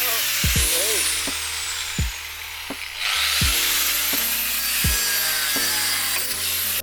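A mains-powered cutting tool running continuously under load with a high whine, easing off about two seconds in and then spinning back up with a rising whine, as it cuts through a part on a car being stripped for parts.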